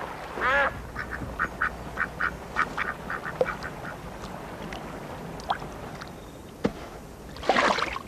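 Ducks quacking: one drawn-out quack about half a second in, then a quick run of short quacks lasting about two seconds, then only a few scattered sounds. A louder burst of noise comes near the end.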